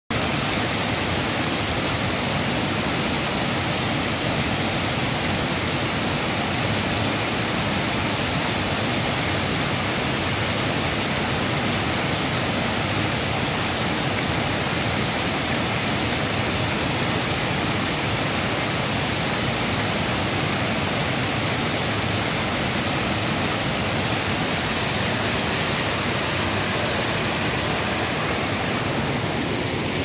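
Small waterfall pouring over rock ledges into white water: a steady, even rush of falling water.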